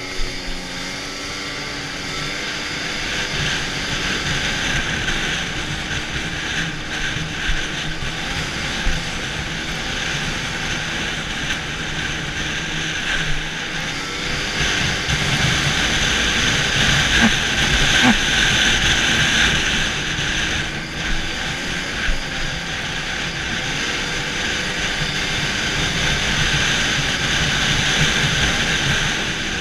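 Arctic Cat snowmobile riding along a trail at speed, its engine note wandering up and down with the throttle over steady track and rushing noise, swelling somewhat louder about halfway through.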